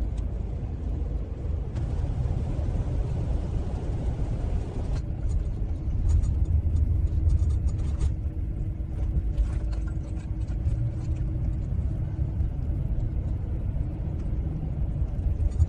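Van driving on a back road, heard from inside the cab: a steady low rumble of engine and tyres, with a run of knocks and rattles starting about five seconds in.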